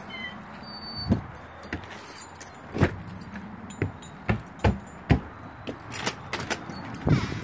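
Footsteps and knocks from a person walking with a phone in hand, about two a second, with a heavier thump about seven seconds in as a door is passed through.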